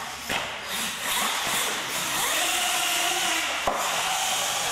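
RC monster truck motors whining over a steady high hiss, with a knock near the start as the flipped truck is set back down on the concrete floor and another sharp knock near the end.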